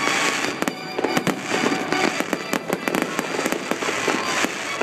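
Fireworks display: a dense, continuous run of bangs and crackling bursts, one close after another.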